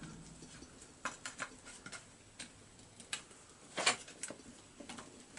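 Faint, irregular small clicks and taps of metal parts as a chainsaw piston and its pin are worked by hand onto the connecting rod's small-end bearing. The loudest click comes a little under four seconds in.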